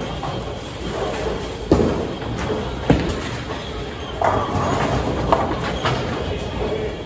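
Bowling alley sounds: a steady rumble of balls rolling on the lanes, with two sharp knocks about a second apart near the middle, then a clatter of balls striking pins.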